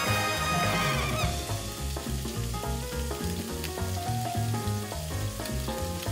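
Cubes of venison sizzling as they sear in hot oil in a frying pan. Background music with a walking bass line plays underneath, loudest in the first second.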